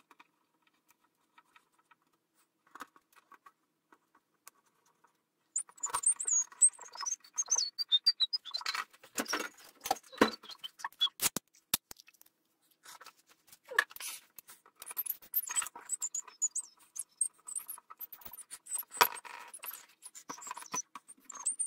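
Sped-up sound of screws being driven by hand into a pinball playfield's plexiglass window: rapid clicks, clinks and taps of screws and a screwdriver, with high wavering squeaks from the fast-forwarded audio. Only a few faint ticks at first, then busy from about five seconds in.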